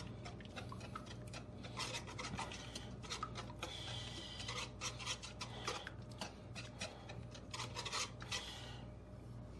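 A cooking utensil scraping and stirring eggs around a wok as they scramble, in repeated irregular scrapes.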